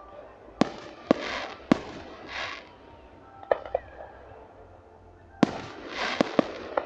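Aerial fireworks shells bursting overhead: about nine sharp bangs, several followed by a crackling hiss as the stars burn out, with a quick run of bangs near the end.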